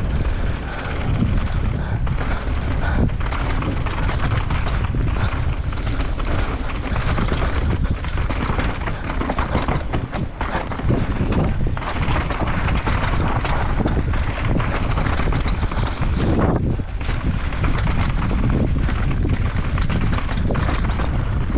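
Heavy wind buffeting on the microphone over a steady clatter and rattle of a downhill mountain bike ridden fast over a dry, dusty trail.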